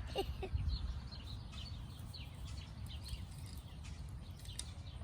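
Small birds chirping: a string of short, high, falling chirps, several a second, over a low rumble.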